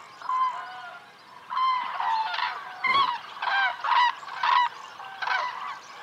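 Common cranes calling: about ten short, loud trumpeting calls in quick succession, some from different birds. These are the cries of the flock's early courtship at the end of winter.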